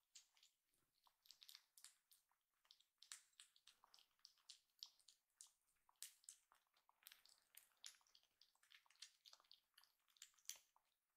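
Faint, quick wet clicks and smacks, several a second, from a kitten's mouth as it licks and smacks its lips.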